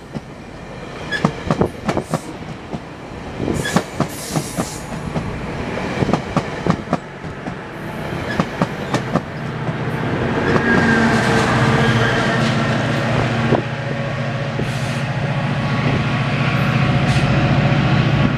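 GO Transit bilevel coaches rolling out of a station, their wheels clicking over rail joints in a regular clatter. About halfway through, the steady drone of the MP40PH diesel locomotive takes over and grows louder toward the end.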